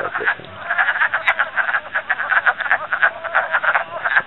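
Chorus of many wood frogs calling at once: a dense, overlapping run of short croaks, many each second.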